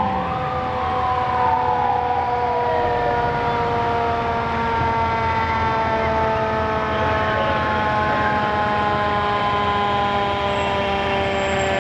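Fire truck siren sounding with its pitch falling slowly. A quicker rise and fall of pitch comes in the first few seconds.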